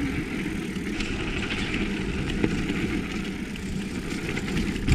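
Mountain bike rolling down a dirt trail: steady wind rumble on the action camera's microphone with tyre noise and a few small knocks from the bike going over bumps.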